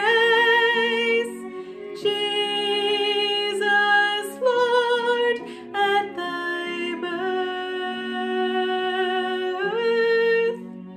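A woman singing a slow carol solo, holding long notes with vibrato over a soft, steady instrumental accompaniment. Her voice stops near the end, leaving the accompaniment.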